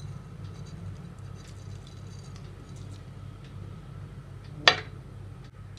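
Whole spices tipped from a plate onto raw mutton in a pressure-cooker pot: a few faint small ticks as they drop, and one sharp clink near the end. A steady low hum runs underneath.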